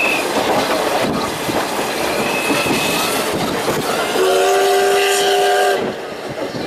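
The C61 steam locomotive's whistle sounds one chord-like blast of about a second and a half, about four seconds in, over the steady clickety-clack of coach wheels on jointed rail, heard through an open carriage window. Earlier there are brief high wheel squeals.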